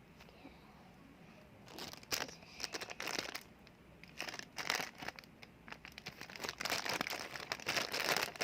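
Plastic bag crinkling and rustling in irregular bursts as it is handled, starting about two seconds in.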